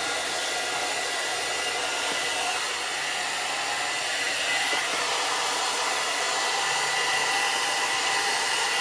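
Soobest hot-air brush dryer blowing steadily on its low heat setting, a continuous airflow hiss with a faint motor whine.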